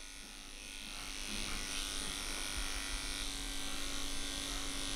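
Electric pet clippers with a number 10 blade running with a steady hum as they shave through a matted coat close to the skin, growing a little louder over the first two seconds.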